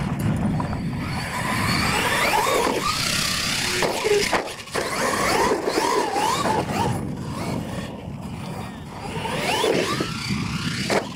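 Electric motor of a radio-controlled monster truck whining as it speeds up and slows down, its pitch rising and falling, over the rumble of the truck running on the dirt track.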